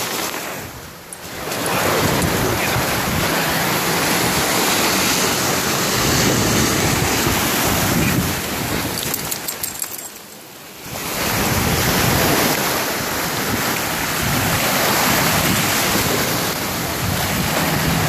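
Small surf waves washing up on a sandy beach, with wind buffeting the phone's microphone in a loud, rumbling rush. The noise dips briefly twice, about a second in and about ten seconds in.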